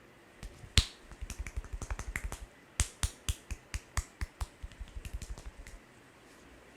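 A run of sharp hand taps and snaps during a head massage, each with a soft thud beneath the crack. They come fast at first, about eight a second, then slow to about four a second around the middle, then quicken again before stopping.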